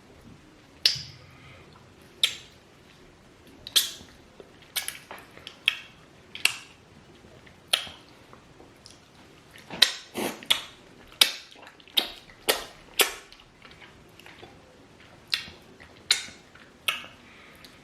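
Close-up eating sounds from a mukbang of banku with okra soup eaten by hand: short, wet lip smacks and sucks on food and fingers, irregular, about one a second, with a cluster of them near the middle.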